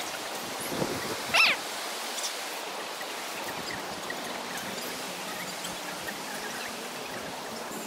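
Steady rushing of creek water, with one short, sharp call cutting through about a second and a half in.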